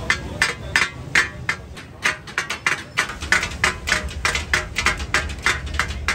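Katakat chopping: two metal spatulas striking a large iron tawa griddle in quick rhythmic clacks, about three a second, as tomatoes are chopped on the hot plate.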